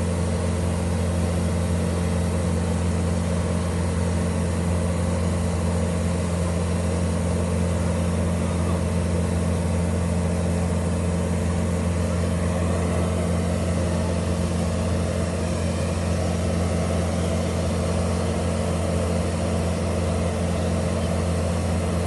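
Compact tracked skid-steer loader's diesel engine running at a steady, even speed, a constant drone with no revving.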